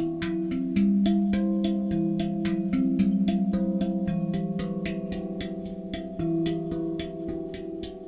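Lunadrum Chandra steel tongue drum in the Mystic scale, played with the fingertips and palms: rapid strokes, about five a second, each note ringing on and overlapping the next.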